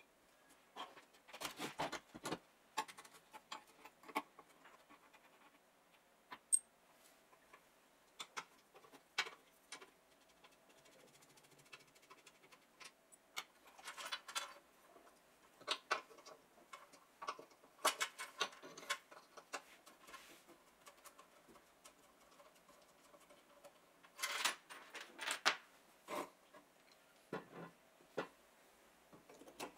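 Irregular short metal clicks, taps and scrapes as the rusty steel vise parts and base of a cut-off saw are handled and taken apart by hand, with tools set down on the bench.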